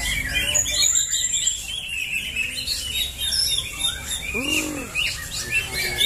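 Several caged greater green leafbirds (cucak hijau) singing at once in a contest, with dense overlapping chirps and whistles and one high drawn-out whistle about a second in. About four and a half seconds in, a lower call rises and falls.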